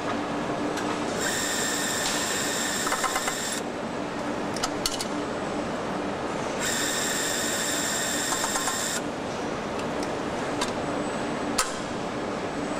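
Engine assembly-line machinery running steadily, with a high-pitched machine whine that comes on twice for about two seconds each and cuts off sharply, and a few sharp clicks.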